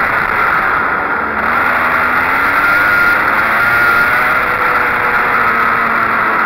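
Go-kart engine running at speed, heard up close from on board the kart, its note holding fairly steady with slight rises and dips. A steady rushing noise runs underneath.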